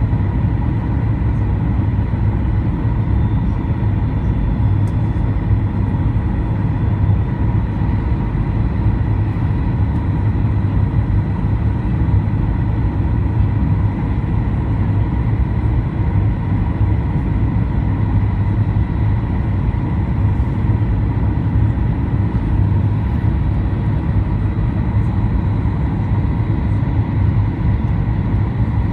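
Steady cabin drone inside a Boeing 737-800 descending on approach: low engine and airflow noise from its CFM56 turbofans, with a faint steady whine above it.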